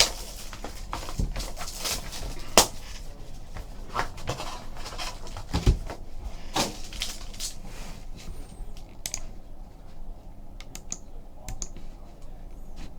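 Handling noises from sealed trading-card boxes being opened: irregular clicks, scratches and rustles of cardboard and wrapping, with a few louder knocks in the first half and sparser clicks later.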